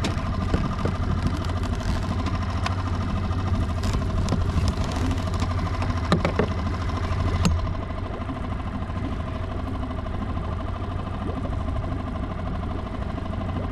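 Small Mercury outboard motor idling steadily, with a few sharp clicks a little past halfway.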